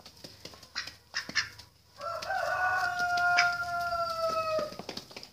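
Footsteps on dry ground. About two seconds in, a rooster gives one long crow that falls slightly in pitch and lasts nearly three seconds.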